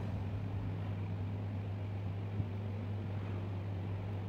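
A steady low hum with a faint hiss, and one faint click a little past the middle.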